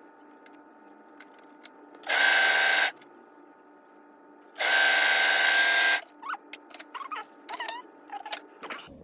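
Brother 1034DX overlock machine (serger) running in two short bursts while stitching a seam, the first under a second long and the second about a second and a half.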